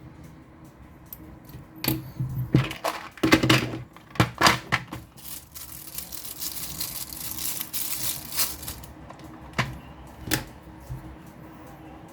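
Small plastic smartphone parts handled and pressed into place during reassembly: a run of sharp clicks and taps, a few seconds of rustling hiss in the middle, then two more clicks.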